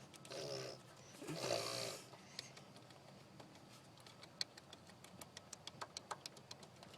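VW AAZ 1.9 turbo-diesel engine running with faint, irregular sharp knocks that grow more frequent near the end, which the owner takes for piston slap.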